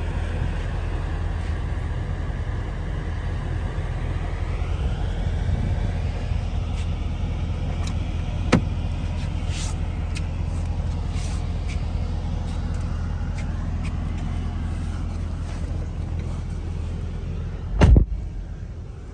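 5.7-litre Hemi V8 idling, a steady low rumble heard with the door open. Near the end a car door shuts with a heavy thud and the rumble drops away.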